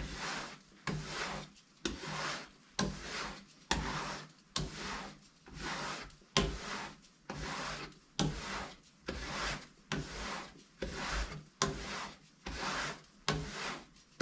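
Kitchen knife blade drawn along a hanging kangaroo-tail leather strop, alternating sides, about one pass a second. Each pass is a short, sharp-starting rasping hiss. The strokes are the final finishing of the freshly belt-sharpened edge.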